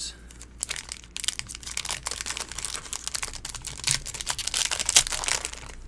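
Foil wrapper of a Magic: The Gathering booster pack crinkling and tearing as it is opened by hand, a dense run of rapid small crackles.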